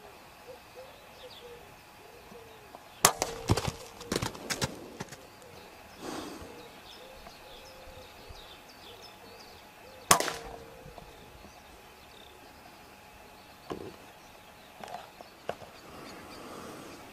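Two sharp rifle shots, about three and about ten seconds in, each ringing briefly; the first is followed by a quick run of clicks and knocks.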